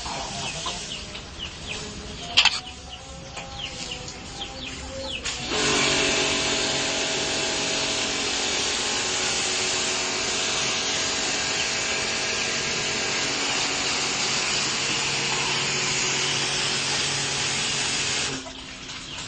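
Chickens calling with short, high chirps, then a small motor starts about five seconds in and runs steadily and loudly, stopping shortly before the end.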